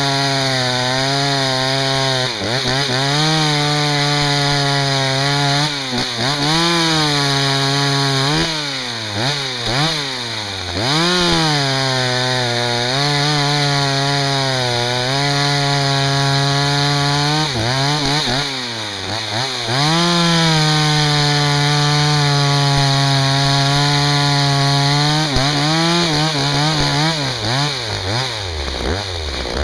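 Husqvarna 61 two-stroke chainsaw cutting firewood: the engine is held at a steady high pitch through each cut, then drops and revs back up between cuts, about five times.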